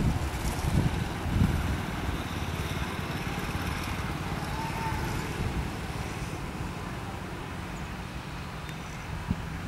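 Departing passenger train of LHB coaches rolling away on the track: a steady rumble of wheels on rails that slowly fades, with a few low thumps in the first second and a half.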